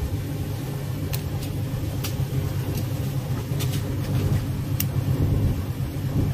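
Boat engine idling with a steady low rumble, with a few short, sharp clicks and taps from the wire lobster trap being handled.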